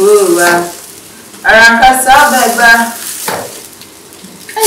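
Food sizzling in a hot frying pan as it is stirred with a utensil: a steady high hiss. A person's voice comes in over it near the start and again around the middle, louder than the frying.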